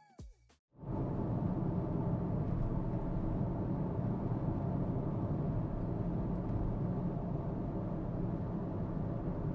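Steady low rumble of a car on the move, road and engine noise, starting just before a second in after music cuts off.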